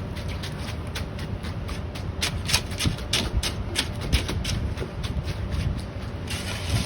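Concrete screed being worked over wet concrete: irregular scraping and knocking strokes, a few a second, over a steady low rumble.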